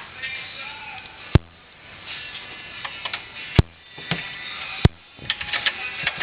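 Ratcheting wrench clicking in short runs as a bolt is worked by hand, with three sharper, louder clicks along the way.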